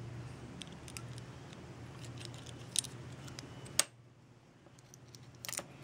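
A few light metallic clicks and taps from the parts of a spy camera pen being handled and fitted together, the sharpest just before four seconds in and a short cluster near the end, over a low steady hum.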